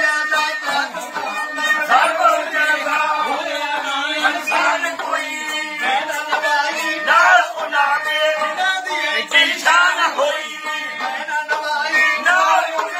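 Man singing a Punjabi folk song, accompanied by a long-necked stringed instrument with a small round drum-like body. A steady drone runs under the wavering voice.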